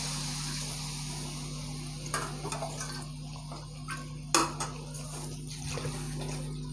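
Water poured from a jug into a steel karahi of fried potatoes and spiced masala, running and splashing with a steady hiss. A few sharp clinks come about two to three seconds in, and the loudest clink about four seconds in.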